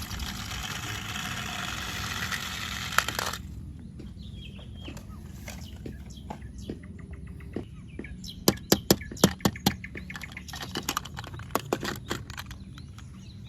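About three seconds of rustling, then scattered small clicks and knocks of hard plastic and metal toy vehicles being handled. A quick run of sharp clicks comes near the middle.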